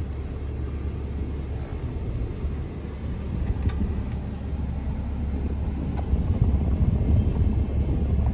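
Diesel truck engine idling: a steady low rumble that grows louder about six seconds in.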